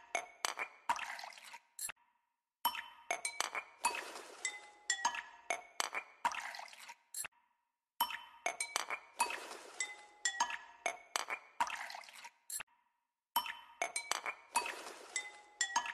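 Background music made of glassy clinks and ringing chime notes, a short loop repeating about every five seconds with a brief silent break between passes.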